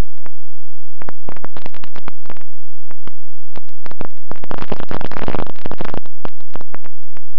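Irregular crackling and clicking picked up by the model plane's onboard camera microphone. The clicks come in scattered bursts, crowd into a dense crackle from about four to six seconds in, then thin out again over a faint steady hum.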